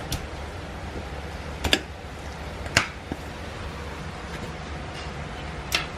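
Transfer case short-throw shifter being worked through its positions: a few separate sharp clicks and clunks, spaced about a second or more apart, over a steady low hum.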